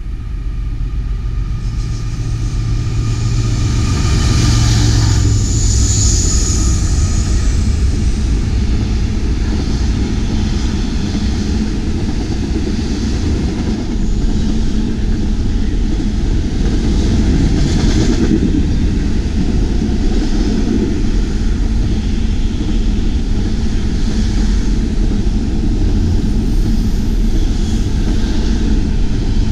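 Double-stack intermodal freight train passing close below: the sound of the diesel locomotive builds over the first few seconds as it arrives, then the container cars roll by with a steady low rumble of wheels on rail.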